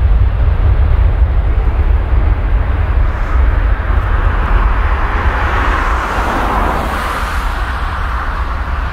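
Jet engines of a Boeing 737 on the runway: a broad rushing noise that swells about midway and then eases slightly, over a steady low rumble of wind on the microphone.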